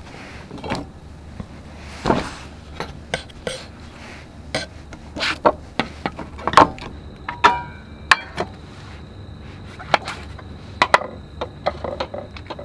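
Irregular taps and knocks of food preparation on a wooden cutting board as sliced peppers are handled into a stainless steel cup, with a few short metallic clinks from the cup about halfway through.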